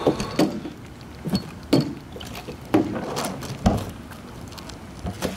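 A hollow plastic picnic cooler being tipped and handled, giving irregular knocks and thuds from its body and lid, about six hits spread across a few seconds.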